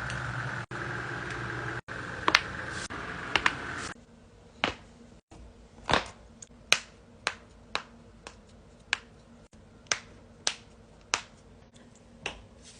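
A series of sharp joint cracks and pops, about a dozen single and double snaps spaced roughly half a second to a second apart. A steady hum lies under the first few cracks and stops suddenly about four seconds in, where the clips change.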